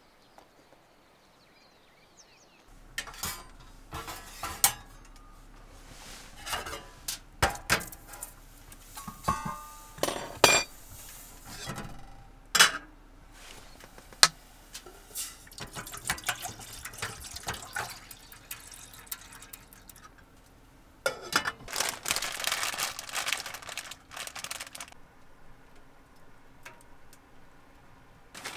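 Metal camp cookware clinking and knocking as a pot and its lid are handled on a small wood-burning stove, with water poured from a plastic bottle into the pot. A few seconds of dense rustling noise come about three-quarters through.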